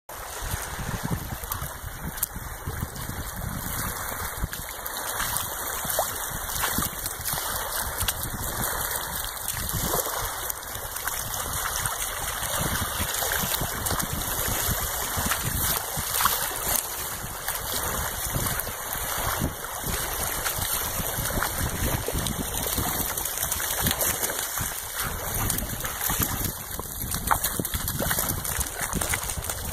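Shallow water rippling and lapping over a sandy shoreline, a steady wash of water noise with an uneven low rumble underneath.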